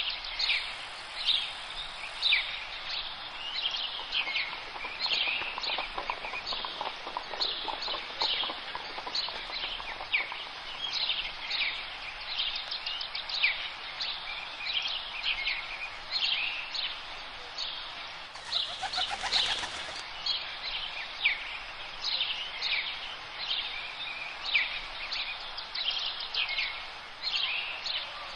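Wild birds singing, a steady run of short falling chirps, over a steady background hiss; a brief louder rush of noise passes a little after the middle.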